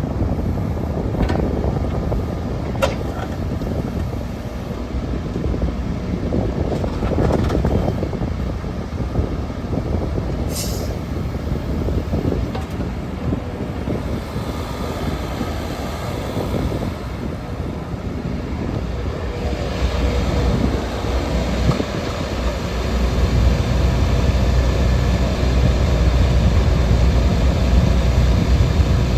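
Wacker Neuson EZ36 mini excavator's diesel engine running, with a few sharp clicks in the first part; the engine grows louder and steadier about two-thirds of the way through.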